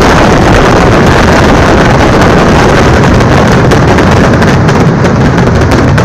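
Massed fireworks barrage of the vedikkettu: firecrackers and shells going off so rapidly that the bangs merge into one continuous, very loud noise, with single cracks standing out a little more near the end.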